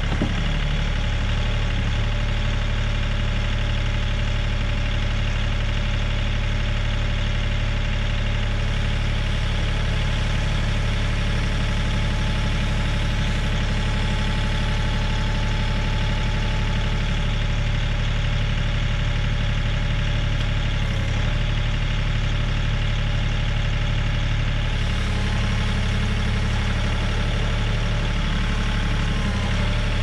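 Kioti 3510 compact tractor's diesel engine idling steadily.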